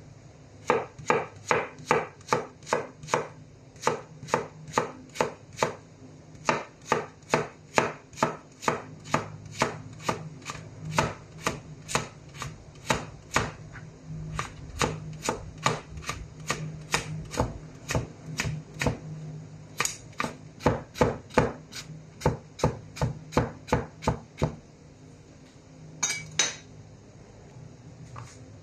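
Chef's knife chopping a crisp white root vegetable into matchsticks on a cutting board: sharp knocks about three a second, in runs broken by short pauses. A brief rasping sound comes near the end.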